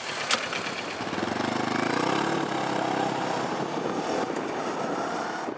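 Motorcycle engine revving up over about a second and a half, then held at steady high revs, with a sharp click shortly after the start.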